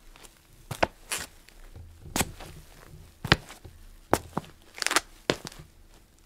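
Feet dancing on a floor: irregular taps, stamps and a shuffling scuff about five seconds in, with no music to be heard.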